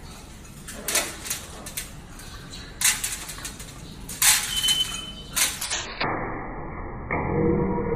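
Scarlet macaw flapping its wings while hanging upside down from a perch: a run of irregular whooshing bursts of wing noise, with a brief high note about two-thirds of the way through. After about six seconds the sound turns dull and muffled.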